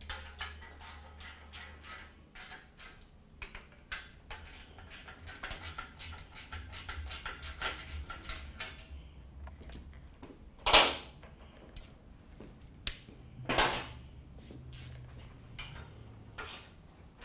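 Hand ratchet clicking in quick runs of strokes as exhaust stud nuts are tightened down at the cylinder head of a motorcycle exhaust, with two louder, longer sounds about eleven and fourteen seconds in.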